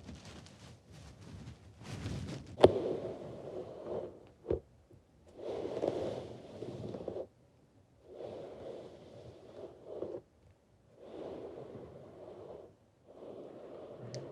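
Slow, close-up breaths into the microphone, four or five in a row, each lasting a couple of seconds with short pauses between. Near the start come a few light taps and one sharp click, the loudest sound.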